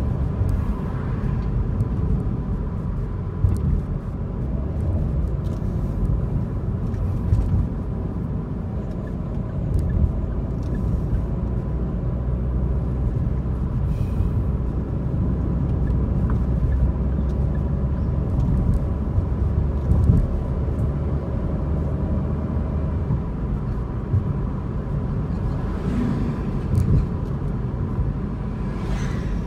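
Car driving along a city road: a steady low rumble of engine and tyre noise, with a faint steady tone above it and a few light clicks.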